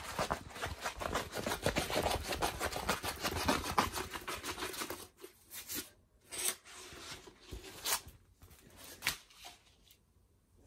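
Plastic-film-covered diamond painting canvas crinkling and rustling as it is rolled backwards to flatten it. Dense crackling for the first five seconds or so, then scattered crackles and rubs as the canvas is pressed flat by hand.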